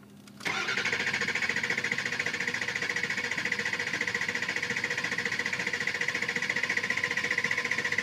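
A 2003 Ford 6.0 Power Stroke V8 diesel cranking on its starter without firing, an even, rhythmic cranking that begins about half a second in. Crank-no-start: injection control pressure peaks at about 410 psi, short of the 500 psi it needs, so the injectors are not commanded on.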